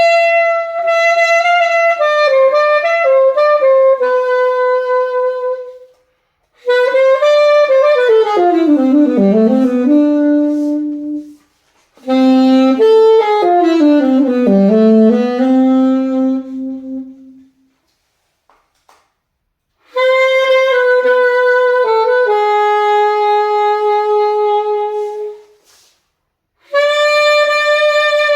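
Solo alto saxophone playing a melody in five phrases of held notes and quick runs that sweep down and back up, each phrase broken off by a short pause for breath, the longest about two-thirds of the way in.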